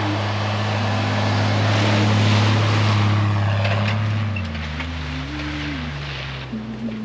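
Background music with slow, held notes over a steady rushing noise, which eases off about four and a half seconds in.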